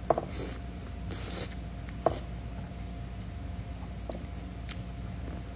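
Biting into a piece of boiled corn on the cob and chewing it close to the microphone: a sharp click of the bite just after the start, soft crunchy chewing, and another click about two seconds in.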